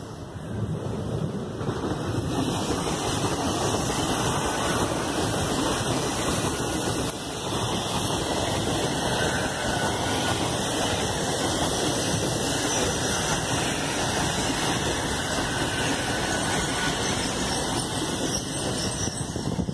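A Great Western Railway Intercity Express Train passes close by at speed, making a steady rush of wheels on rail and moving air. The noise builds over the first couple of seconds and then holds steady, with a faint high whine about halfway through.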